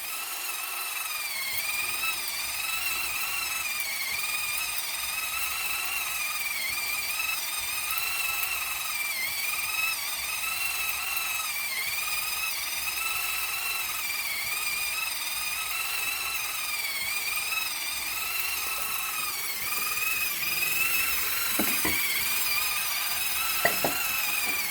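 Small electric gear motor of an RC concrete mixer truck whining steadily as it turns the drum, its pitch wavering up and down about once a second. A few light knocks near the end.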